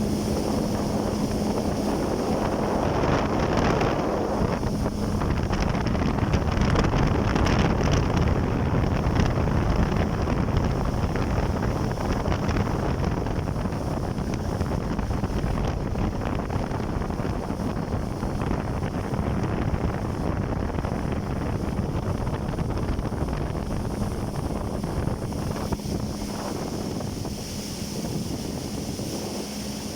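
Jet ski running on open water, a steady engine hum under heavy wind buffeting on the microphone and rushing water. The wind noise is loudest in the first third and eases toward the end, where the engine hum stands out more.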